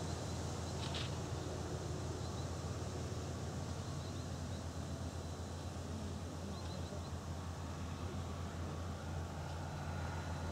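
Steady low rumble of wind buffeting the microphone outdoors, with a few faint high chirps now and then.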